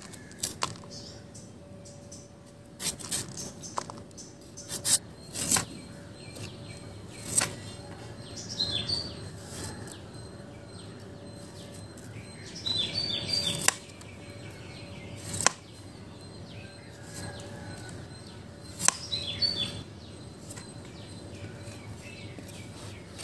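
A large knife shaving the spiny skin off a young jackfruit on a plastic cutting board: scattered sharp chops and scrapes, a few close together about three seconds in. Birds chirp briefly three times.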